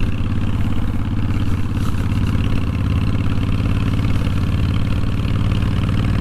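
Honda VTX1300's 1300 cc V-twin engine running steadily while the motorcycle is ridden, holding an even pitch with no revving.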